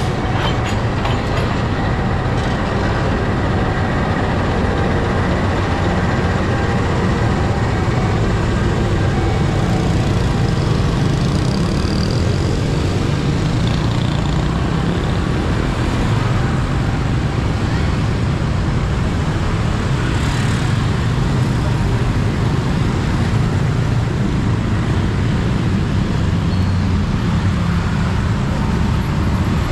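Steady road traffic noise: motor vehicle engines and tyres running continuously, with no distinct single pass or horn standing out.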